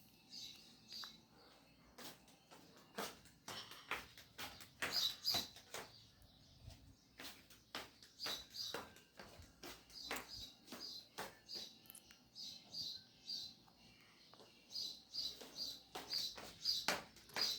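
Coins clinking and jingling: irregular sharp clicks, several a second, many with a short high ring.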